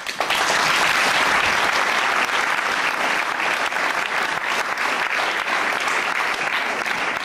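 Theatre audience applauding: dense clapping that starts abruptly and holds steady, easing slightly near the end.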